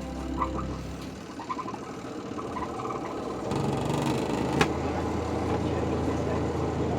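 A motor running with a rough, steady hum that grows louder about three and a half seconds in, with a single sharp click shortly after.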